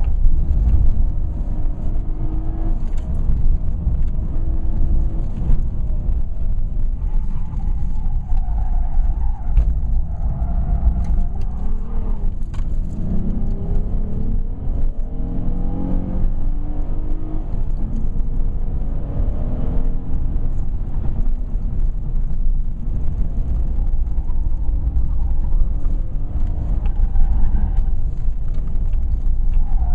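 Ford Cougar 2.5 V6 engine driven hard, heard from inside the cabin under a heavy low rumble, its revs rising and falling through the middle. The tyres squeal briefly in a corner about a third of the way in and again near the end.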